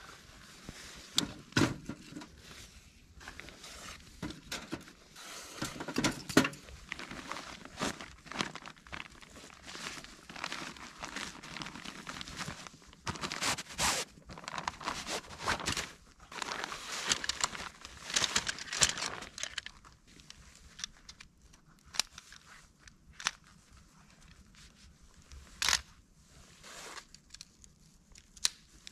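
Footsteps crunching in trampled snow, with irregular rustling and handling noises and a few sharper clicks.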